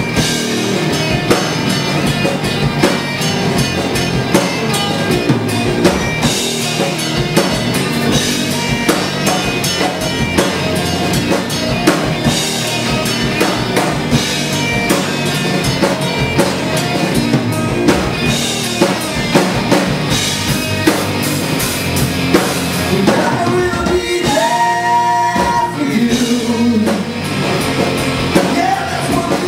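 Live rock band playing: distorted electric guitars, bass guitar and a drum kit keeping a steady beat.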